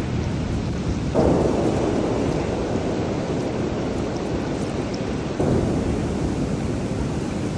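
Thunderstorm: heavy rain falling steadily, with a rumble of thunder that comes in suddenly about a second in and fades slowly, and another swell about five and a half seconds in.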